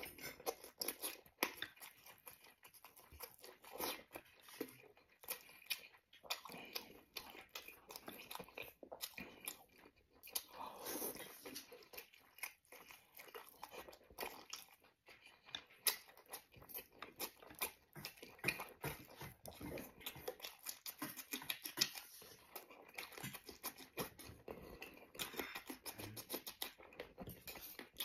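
A person chewing braised pork belly with the mouth open: a steady, irregular run of short, wet smacking and clicking mouth sounds, with some crunching.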